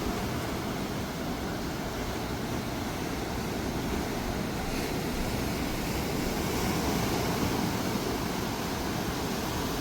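Steady outdoor ambient noise, an even wash with no distinct event standing out.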